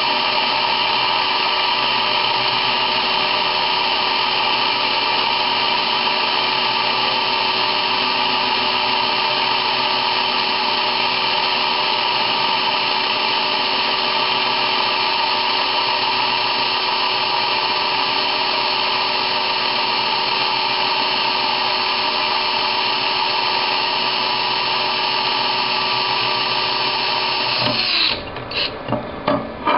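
Power drill running at a steady speed, its small diamond-tipped bit grinding a hole through a porcelain tile: a constant motor whine with the grinding of the bit. Near the end the drill stops, followed by a few scrapes and knocks.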